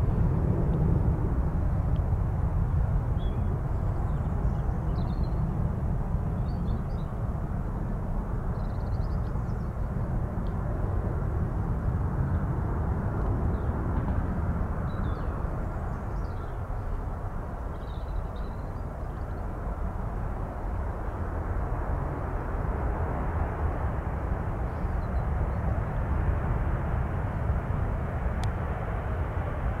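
Boeing 787 airliner's jet engines during approach, touchdown and rollout: a steady low rumble that dips slightly partway through, then swells again.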